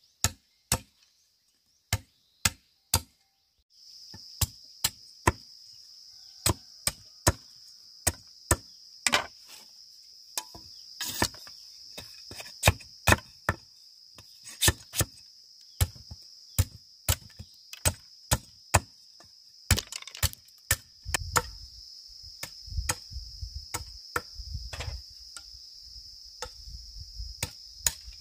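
Repeated sharp chopping blows on bamboo, irregularly spaced at about one or two a second. A steady high insect buzz starts about four seconds in and continues under the blows.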